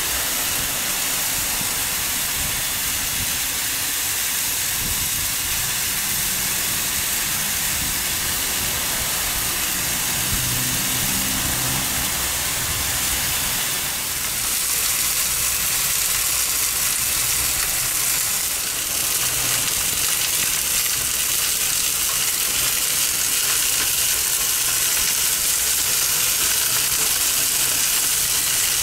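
Cevapcici sizzling on a very hot Severin electric steak board grill: a steady, even hiss of meat fat frying on the grate.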